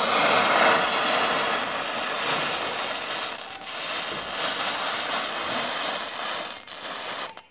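A trail of match heads burning along its length: a steady fizzing hiss of flaring powder with a few crackles, loudest at the start and easing off before it stops near the end.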